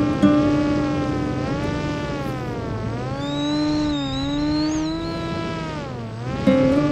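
FPV quadcopter's electric motors whining, the pitch rising and falling smoothly as the throttle changes through the flight.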